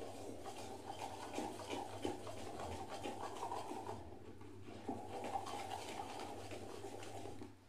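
A wire whisk beating thick gram-flour (besan) batter in a bowl, with rapid, continuous scraping and clicking of the wires through the batter and against the bowl. It eases briefly around four seconds in.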